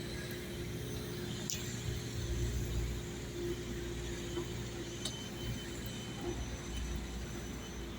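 Construction-site background: a steady low engine rumble with a faint steady hum, and a few light clicks about a second and a half and five seconds in.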